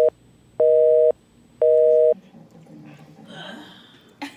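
Telephone busy signal: a steady two-tone beep switching on and off every half second, the North American busy-signal cadence, three beeps here before it stops about two seconds in. A sharp click comes near the end.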